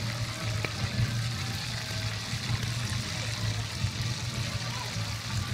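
Whole chickens frying in a pan of hot oil, a steady sizzle, over a low steady hum.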